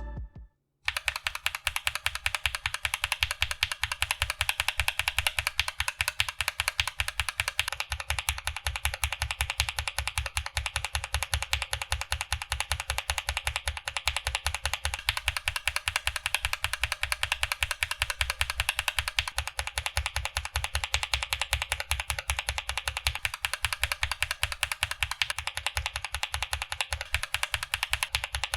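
Everglide Aqua King linear switches on an aluminium-plate mechanical keyboard, stock and lubed, struck in a fast, even run of keystrokes, several a second, starting about a second in.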